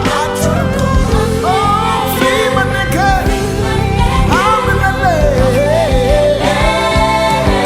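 Gospel worship song performed with a band: a sung melody with gliding, ornamented lines over a steady beat and sustained instrumental chords.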